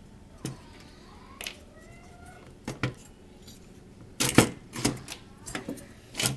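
Plastic and metal clicks and knocks from an Xbox 360's case and motherboard being handled and worked loose, in scattered sharp strikes, with a louder clatter about four seconds in.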